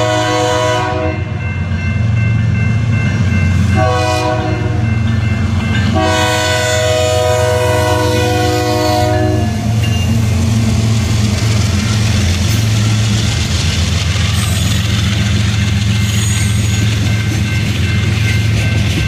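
BNSF diesel freight locomotive passing close by, its horn sounding three times: a blast that ends about a second in, a short one around four seconds, and a long one of about three and a half seconds, over the steady rumble of the diesel engine. After the horn stops, the freight cars roll past with the clickety-clack of wheels over the rail joints.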